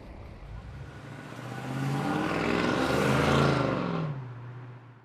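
A motor vehicle passing by: its engine note builds, is loudest about three seconds in, then drops in pitch and fades away.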